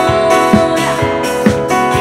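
Live band playing an instrumental passage with no vocal: guitar and sustained chords over a drum kit keeping a steady beat.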